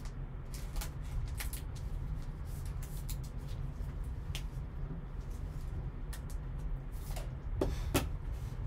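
Gloved hands handling trading cards and plastic sleeves: light rustling and scattered small clicks, with two sharper taps close together near the end. A steady low hum runs underneath.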